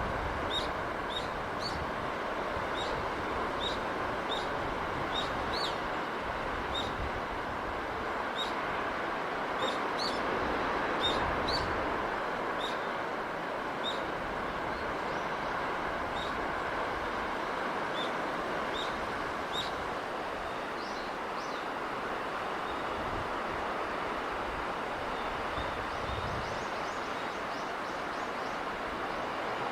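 Steady rushing of sea wind and surf, with a small bird chirping short high notes again and again, then a few higher calls about two-thirds of the way through.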